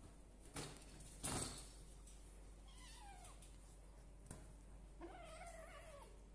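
A month-old kitten meows twice: a short call falling in pitch about three seconds in, then a longer call near the end. Before the calls come two sharp knocks, the louder one about a second and a half in.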